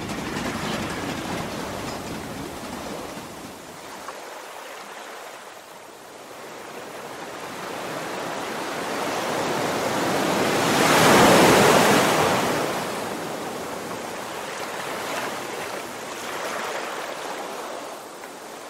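A rushing wash of noise like surf that swells slowly to its loudest a little past the middle and then ebbs away, rising once more briefly near the end.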